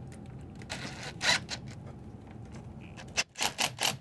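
PVC drain fitting being worked into its freshly primed and glued hub: plastic scraping on plastic, then from about three seconds in a quick run of sharp knocks, about four a second, as the joint is driven home.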